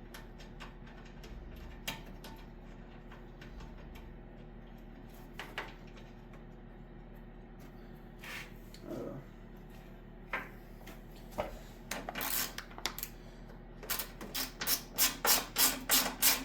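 Scattered faint handling clicks, then a quick run of rubbing strokes, about three a second, getting louder near the end, over a steady low hum.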